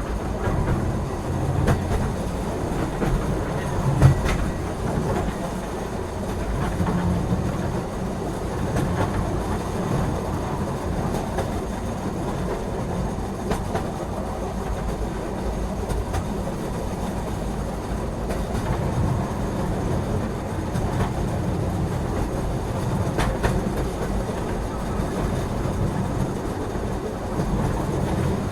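Steady low rumble of a moving train heard from inside a passenger carriage, with the wheels clattering over the rails and a sharper knock about four seconds in.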